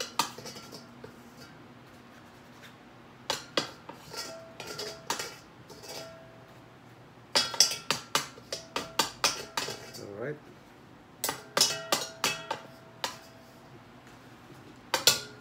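Stainless steel bowl knocking and clinking as hands and leaf-wrapped rice parcels are handled in it, in several short bursts, with the bowl ringing briefly after some knocks, along with a crisp rustle of the leaves.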